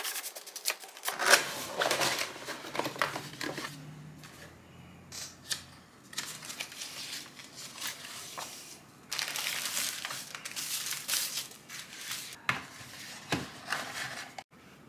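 A cardboard keyboard box being unpacked by hand: the box sliding out of its sleeve, then the paper manual and tissue wrapping rustling and crinkling in irregular bursts, which stop abruptly near the end.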